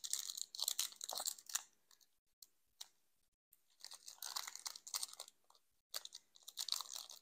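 Foil wrapper of a Pokémon Crown Zenith booster pack crinkling and tearing as it is pulled open by hand, in three spells of crackly rustling.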